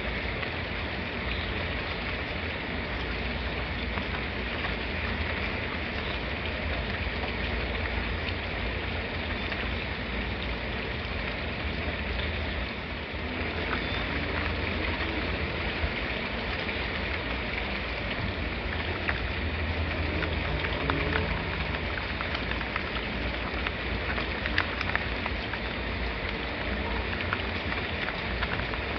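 Steady rain: a constant hiss with a low rumble beneath it, and scattered sharper drop ticks that grow more frequent about halfway through.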